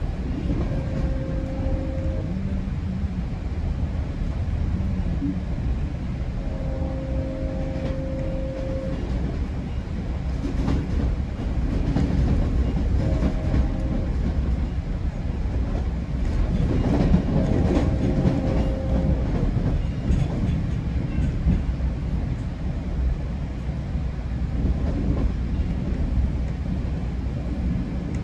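GO Transit bilevel passenger train rolling along the track: a steady low rumble of wheels on rail with occasional clacks. A few brief faint tones come and go in the first two-thirds.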